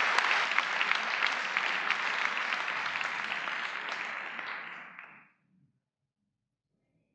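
Audience applauding in a large hall, the clapping dying away about five seconds in.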